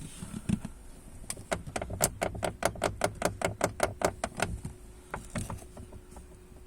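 Lada Vesta door check (door limiter) creaking as the door moves, in a fast run of sharp clicks, about five a second for about three seconds, with a couple more a second later. It is the squeaking door check that the owner is showing.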